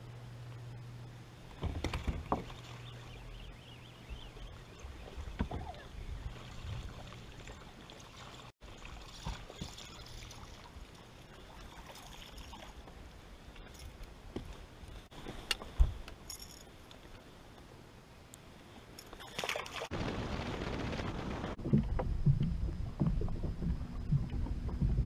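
Knocks and clunks on a bass boat's deck over a faint steady hum, the sharpest knock about two-thirds of the way through. In the last few seconds wind rushes louder across the microphone.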